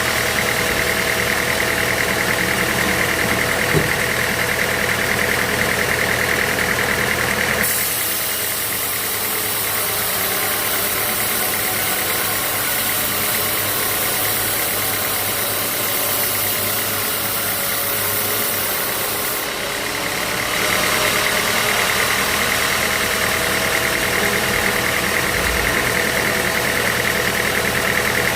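Sawmill machinery running steadily with an engine-like hum. The sound changes abruptly about 8 seconds in, taking on a strong high hiss, and changes back around 20 seconds in. A single click comes near 4 seconds.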